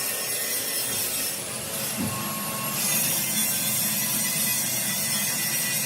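Steady rasping, scraping noise of hand-tool work.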